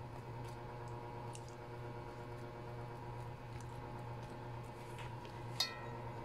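Metal tongs moving pieces of marinated chicken in an enamelled cast-iron pot: faint soft squishes and light ticks, with one sharp ringing clink of metal on the pot a little before the end. A steady low hum sits underneath.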